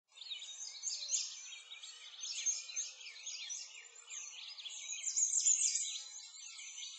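Many small birds chirping and singing at once: a dense, continuous chorus of quick high chirps and trills.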